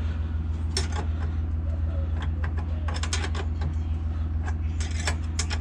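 Scattered light metal clicks and knocks from the saddlebag brackets and their hardware being handled and fitted, with a small cluster of them about 3 s in and another near the end, over a steady low hum.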